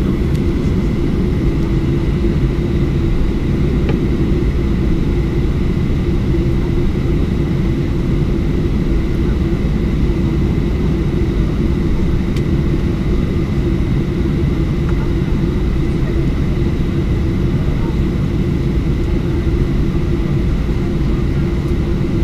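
Cabin noise inside a Boeing 737-800 taxiing on the ground: its CFM56-7B jet engines idling in a steady low rumble, with a constant whine above it.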